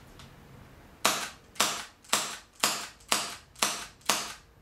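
HFC HG-125 non-blowback green-gas airsoft pistol firing seven shots in quick succession, about two a second, each a sharp pop trailing off briefly. Its self-cocking trigger needs no cocking between shots.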